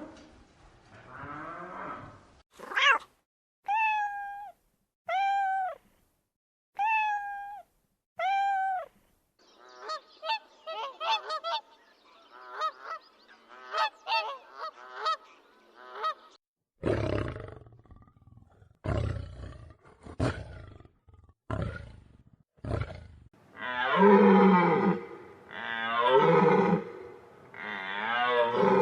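Calls from several different animals in succession. First come five short pitched calls, each rising and falling, then a run of rapid chirping. After that a series of short, low, gruff bursts, and near the end long, loud calls.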